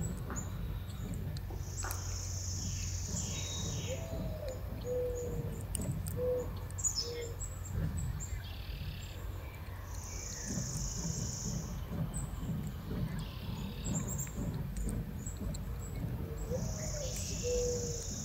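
A dove cooing a short phrase of low hooting notes twice, the first note rising and the rest lower, about four seconds in and again near the end. Between them a high, two-second buzzing trill comes three times, over a low steady hum.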